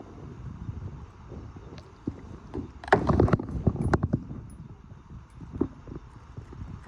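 Irregular knocks and taps on a kayak's hull while a small fish is landed and handled, with a louder clatter about three seconds in.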